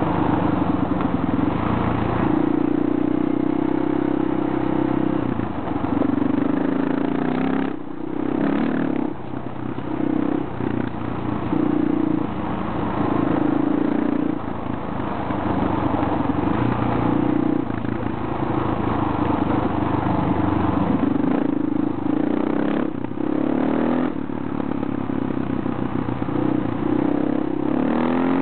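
Motorcycle engine running under way on a gravel road, easing off briefly about eight seconds in and again a little past twenty-two seconds, then rising in pitch near the end as it speeds up.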